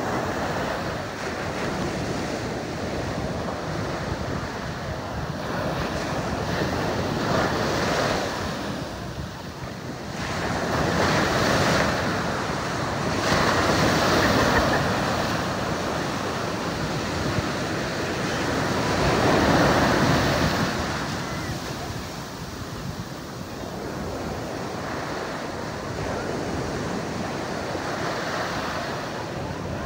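Ocean surf breaking on a sandy beach at close range: a steady wash and hiss that swells louder as each wave crashes, loudest a few times around the middle.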